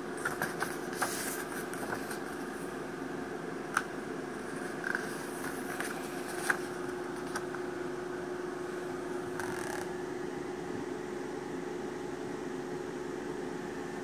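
Yearbook pages being handled and turned: paper rustles and a few sharp clicks, mostly in the first seven seconds, over a steady background hum with one held tone.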